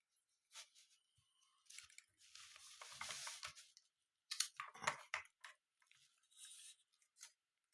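Faint clicks and rustling of a 35mm film cartridge being loaded into a Minolta AF-Sv compact camera, with the plastic body and film handled. A cluster of sharp clicks comes about four to five seconds in.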